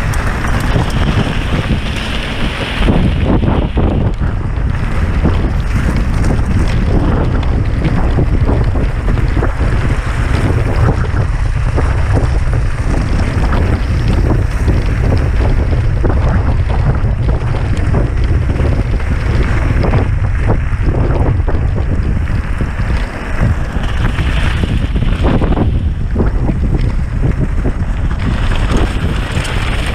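Wind buffeting the microphone of a camera on a mountain bike speeding downhill, with tyre noise and a continual clatter of knocks and rattles from the bike over rough ground.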